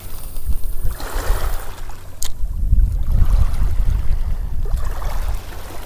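Wind buffeting the microphone in a steady low rumble, with small waves lapping at a pebble shoreline in soft swells. A single sharp click about two seconds in.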